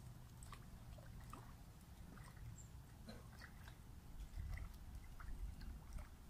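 Faint, irregular splashing and sloshing of water as a hooked carp thrashes at the surface close to the bank, over a low rumble.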